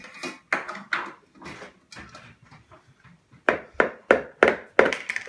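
A raw egg tapped against the rim of a plastic mixing bowl to crack it: a couple of single knocks in the first second, then a run of sharp taps about three a second in the second half.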